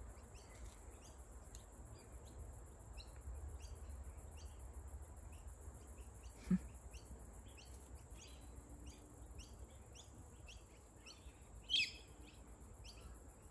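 Quiet outdoor birdsong: small birds chirping repeatedly in the background over a steady faint high buzz and a low rumble, with one louder, falling bird call near the end.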